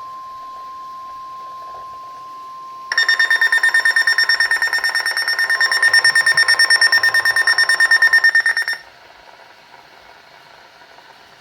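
NOAA Weather Radio warning alarm tone, a steady single tone near 1 kHz. About three seconds in, a weather radio receiver's own loud, rapid electronic alert beeping joins it, a sign that the receiver has been tripped into alert mode. The beeping cuts off abruptly about nine seconds in, leaving faint radio hiss.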